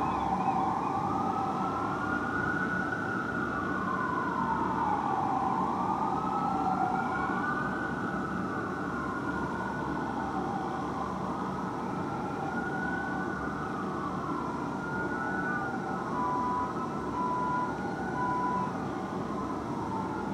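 Fire truck sirens on a slow wail, rising and falling every few seconds, two of them at times overlapping, over a steady city hum. Three short beeps sound near the end.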